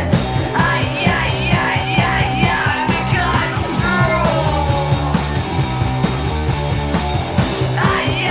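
Fast garage-punk rock song: distorted electric guitar, bass and steady, driving drums, with vocals coming in over the first few seconds and again near the end.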